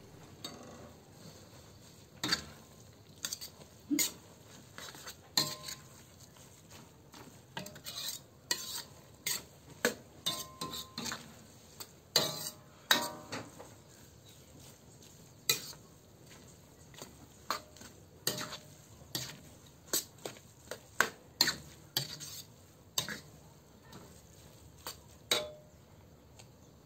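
Spatula stirring glass noodles and vegetables in a metal wok, with irregular scrapes and knocks against the pan, a few of them ringing briefly, over a faint sizzle.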